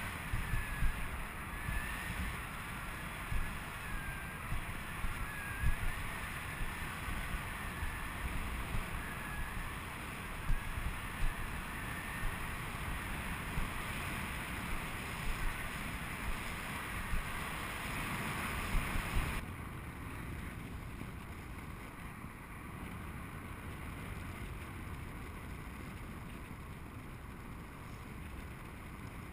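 Wind rushing and buffeting over a harness-mounted camera's microphone during paraglider flight, gusty and uneven. About two-thirds of the way through it abruptly turns steadier and quieter.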